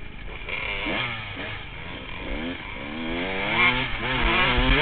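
Honda CR125 single-cylinder two-stroke dirt bike engine revving up and down repeatedly while riding, its pitch climbing and dropping several times and getting louder in the second half.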